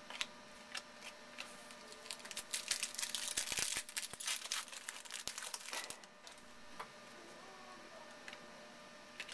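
A trading-card pack wrapper being torn open and crinkled by hand, with scattered crackles that build to a dense run of crinkling in the middle, then a few last rustles.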